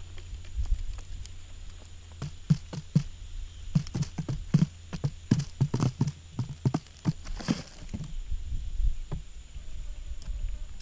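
A run of irregular knocks and taps, thickest in the middle, over a low steady hum.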